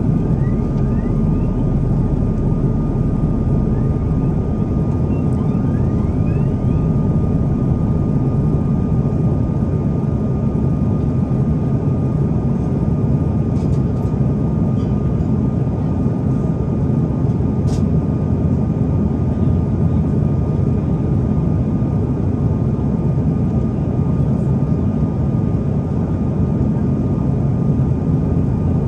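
Jet airliner cabin noise on approach: a steady, even roar of engines and airflow with a constant thin whine above it.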